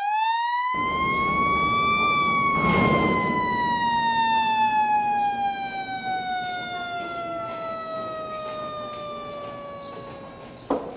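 Motor-driven factory siren winding up in pitch over about two seconds, then slowly winding down, cut off shortly before the end; sounded as the workers come in for the shift.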